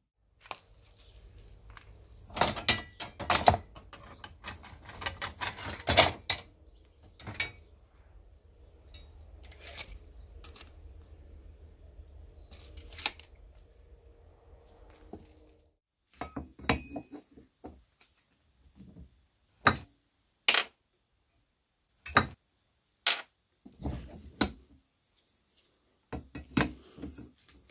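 Old rusty metal parts clanking and clinking against each other as they are picked up and handled, over a low steady hum. After a cut about halfway through, the hum is gone and there are separate sharp clicks and clinks as a rusty spoked metal wheel piece is handled.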